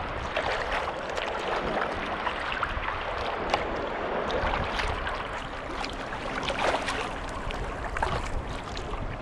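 Water rushing and splashing around a sea kayak paddled through lively waves, swelling and easing every second or two, with many small splashes.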